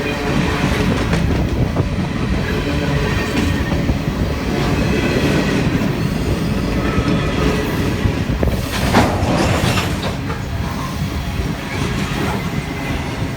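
Freight cars of a Union Pacific manifest train rolling past, with a steady rumble, wheels clacking over the rail joints and faint wheel squeal. A short louder burst of noise comes about nine seconds in.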